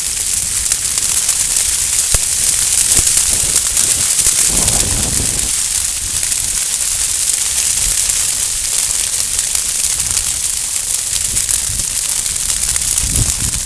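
Field grass burning along a wide flame front: a loud, steady crackling hiss. A low rumble comes in about five seconds in and again near the end.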